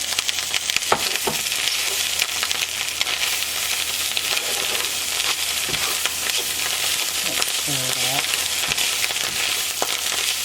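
Ground beef and cooked-down onions, green pepper and mushrooms sizzling steadily in a hot cast iron pan while being stirred, with scattered clicks and scrapes of the utensil against the pan.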